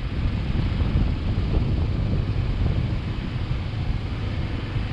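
Wind buffeting the microphone: a low, fluctuating rumble with a steady hiss above it.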